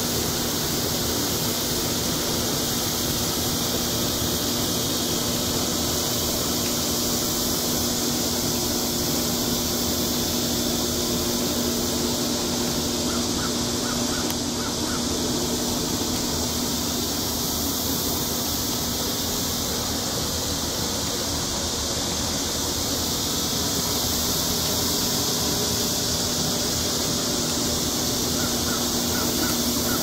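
Outdoor evening ambience by a lake: a steady high-pitched chorus of insects over a low steady hum, with a few short bird calls in brief clusters about 13 seconds in and again near the end.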